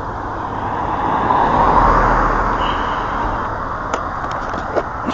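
A road vehicle passing by: a swell of engine and tyre noise that builds to a peak about two seconds in and then fades, with a few light clicks near the end.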